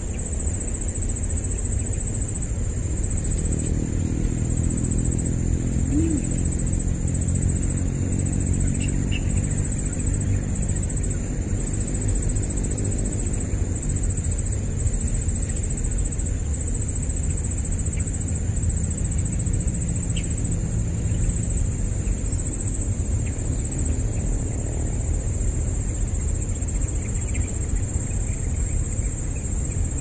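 Outdoor ambience: a steady high insect drone over a low wind rumble on the microphone. A distant engine hums faintly from about three seconds in, then fades out a little past the middle.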